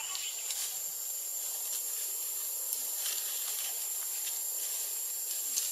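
Insects in the trees making a steady, high-pitched shrill drone, with a few faint clicks.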